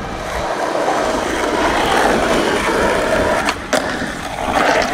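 Skateboard wheels rolling on rough asphalt. A little after three and a half seconds come two sharp clacks as the board pops up onto a concrete ledge, and then its trucks grind along the ledge's edge.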